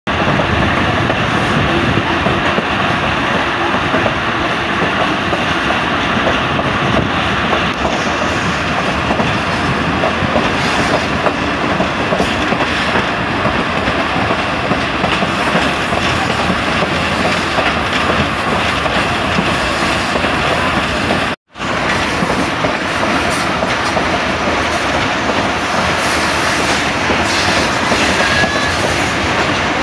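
Passenger train running at speed: a loud, steady rumble and rattle of the carriage and its wheels on the track.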